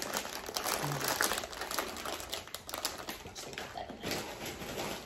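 Dense, irregular crackling and crunching of Lay's cucumber-flavoured potato chips, chewed and handled in their foil bag close to the microphone.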